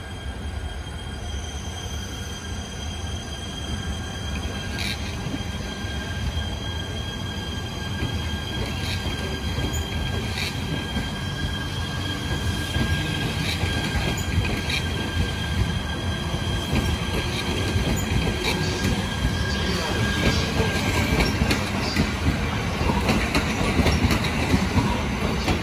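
Out-of-service JR limited-express electric train rolling slowly past the platform. It gives a deep rumble of wheels and running gear, with a steady high wheel squeal and scattered clicks of wheels over rail joints, and grows a little louder toward the end.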